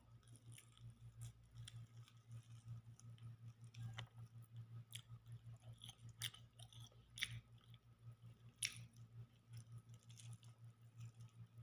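Faint chewing and mouth clicks of a person eating rice and meat by hand, with scattered sharp clicks, over a steady low hum.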